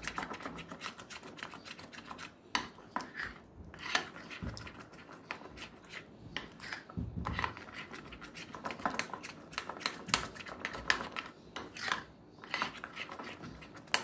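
Metal spoon stirring thick chocolate cake batter in a glass bowl, with irregular clinks and scrapes as it runs against the bowl's sides.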